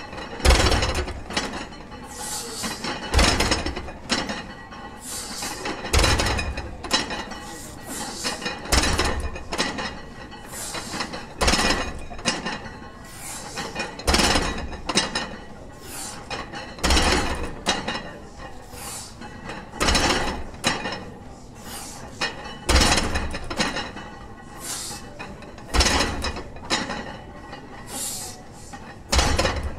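A 275 kg barbell deadlifted for fast reps: the plates hit the floor at the bottom of each rep with a heavy thump and a metallic clink, about every three seconds, eleven times.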